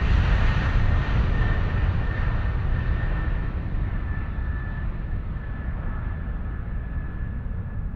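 A deep rumbling noise slowly dying away, growing duller as it fades, with a faint steady whistle-like tone coming in about a second in.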